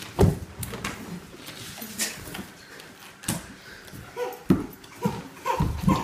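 A large dog scuffling against a man as it clambers onto him, with scattered knocks and a few short whines in the second half.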